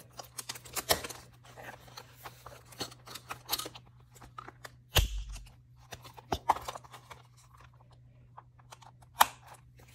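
Small stationery items and their packaging being handled and taken out: scattered rustling and light clicks, with a heavier thump about five seconds in and a sharp click a little after nine seconds.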